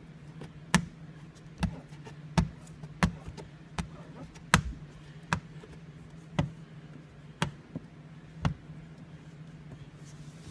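Hand squeegee worked stroke after stroke over wet window film on the inside of a windshield, with a sharp tap about once a second as the edge comes down on the glass. A steady low hum runs underneath.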